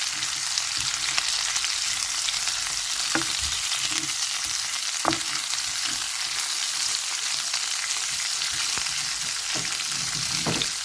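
Beef strips, onion and bell peppers sizzling in hot oil in a frying pan, a steady hiss, with a few brief knocks of the utensil as the pan is stirred.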